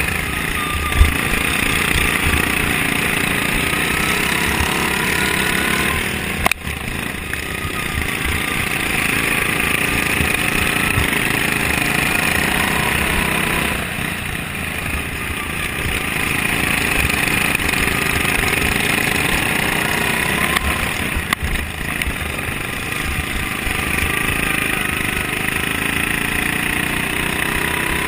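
Racing lawn mower's Briggs & Stratton Vanguard engine running hard under load, its pitch rising and falling as the throttle changes, with a sharp knock about a second in and brief dips in level twice.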